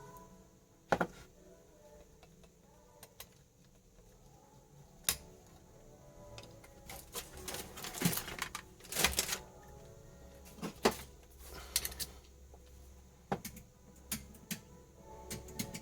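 Irregular clicks and light knocks, a dozen or so spread unevenly, with a busier cluster in the middle: tools and circuit boards being handled on a repair bench.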